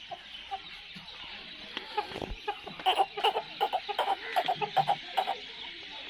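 Aseel rooster clucking: a quick run of short clucks, about four a second, from about two seconds in until shortly before the end.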